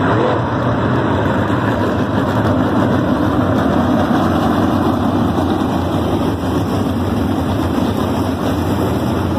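A field of winged sprint cars' V8 engines running together in a tight pack on a dirt oval, a loud, steady din of many engines at once.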